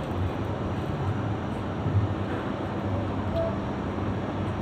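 Steady low hum with an even hiss: continuous room background noise.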